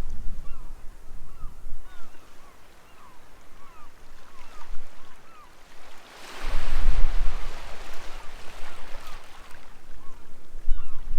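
Sea waves washing on the shore with many gulls calling over them, short curved calls repeating again and again. About six and a half seconds in, a wave surges in with a deep rumble and is the loudest sound.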